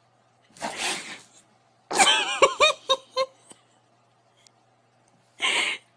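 Startled cat making odd sounds: a breathy hiss-like burst, then a quick string of short, arching yelping calls, and another breathy burst near the end.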